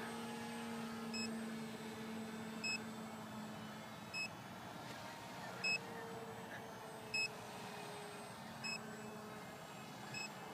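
Short, high electronic beeps repeating evenly about every second and a half, over the faint steady hum of a small electric RC aircraft motor.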